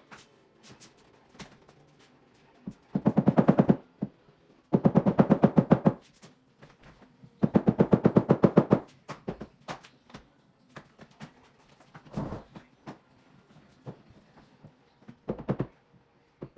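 Rapid trains of clicks, about fifteen a second, in three loud bursts of roughly a second each, with a couple of shorter clicking bursts later on.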